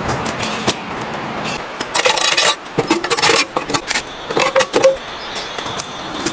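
A run of clinks, clatter and scrapes of objects being handled, from about two seconds in until about five seconds in, over a steady hiss.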